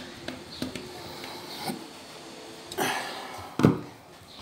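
Light clicks of a screwdriver on the screws and metal chassis of a VCR's tape mechanism, then a rustle and a single thump about three and a half seconds in.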